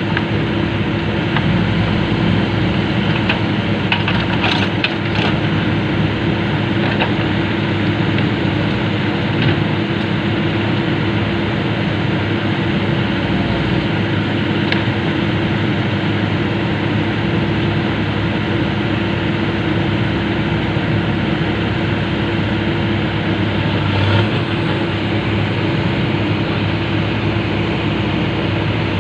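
Komatsu PC200 excavator's diesel engine running at a steady speed, with a few light metallic knocks now and then.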